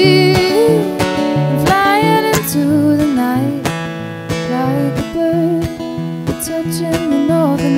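A woman singing to her own strummed acoustic guitar in a live solo performance.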